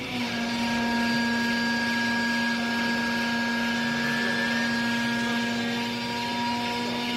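Vertical hydraulic baler's motor and hydraulic pump running under load as the ram presses down on waste textiles, a steady hum-whine that comes on just after the start and holds at an even level.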